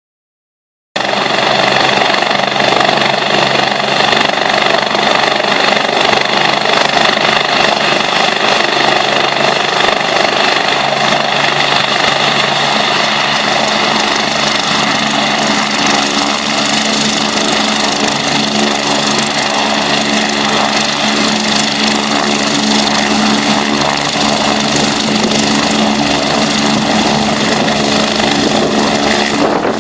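Rescue helicopter running close by: its turbine engine and rotor make a loud, steady noise with several high whining tones over a lower hum. The sound begins abruptly about a second in.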